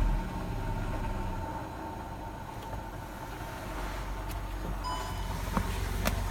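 Audi A1 1.4 TFSI turbocharged four-cylinder petrol engine running, with a steady thin high tone over the engine's low hum and a few sharp ticks near the end. It is the unexplained noise the owner hears from the engine and coolant expansion tank side after a loss of coolant.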